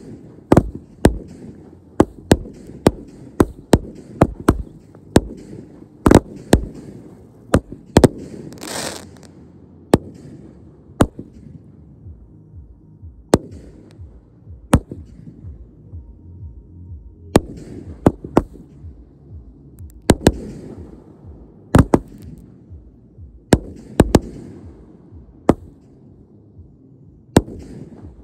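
Fireworks going off: a long, irregular string of sharp bangs, often one or two a second, each with a rumbling echo. About nine seconds in there is a brief hissing burst, and the bangs pause for a couple of seconds now and then.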